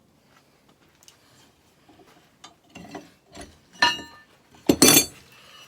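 Irregular metal clanks and knocks of steel being handled in a forge shop, growing louder. There is a ringing clang a little under four seconds in and the loudest clang about five seconds in.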